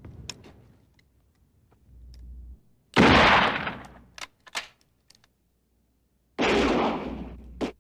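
Two rifle shots from a brass-framed lever-action rifle, about three and a half seconds apart. Each is a sharp crack that dies away over about a second, with a few light clicks between them.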